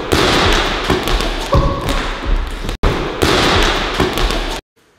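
Several balls bouncing on a wooden sports-hall floor: a dense run of thuds echoing in the large hall. It cuts off suddenly near the end.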